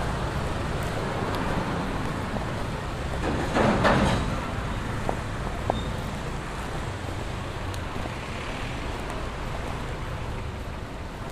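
Steady street traffic noise around a motorcycle taxi moving through slow traffic. A brief louder burst of noise comes about three and a half seconds in, with a couple of faint clicks soon after.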